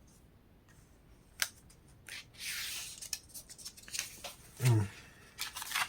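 Glossy book pages being handled and turned: paper rustling and swishing, with a few sharp clicks. A brief low thump comes about three-quarters of the way through.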